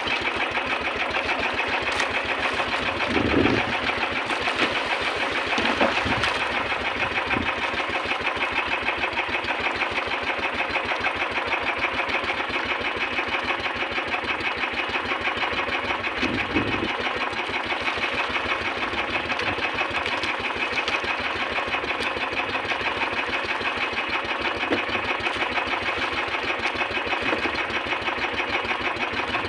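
Small engine of a bangka outrigger fishing boat running steadily with a fast, even beat. A few brief low thumps break through, the loudest about three and a half seconds in.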